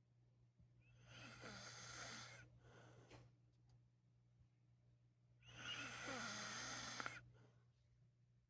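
A sleeping man snoring faintly: two long rasping snore breaths, each about a second and a half, roughly four seconds apart, with a weaker breath between them, over a low steady hum.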